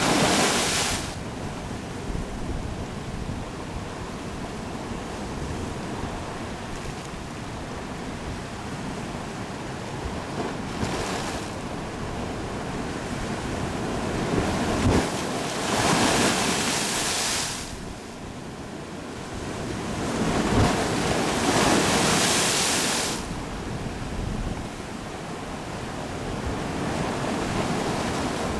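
Surf washing over a rocky shore, with a sea blowhole spouting spray in a few rushing bursts, the first right at the start and the longest about two-thirds of the way through.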